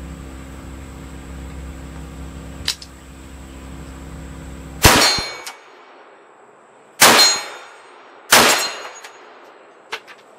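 Three shots from a PSA AK-P GF3 7.62x39 AK pistol, about five, seven and eight seconds in, with a fourth just as it ends; each is followed by the clang and ring of the steel gong being hit. A steady low hum runs under the first half and stops at the first shot.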